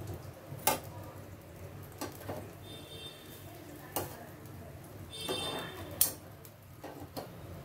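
Steel kitchen tongs clicking and scraping against a wire grill rack while dried fish are turned over a gas burner: several sharp metal clicks and two brief ringing scrapes.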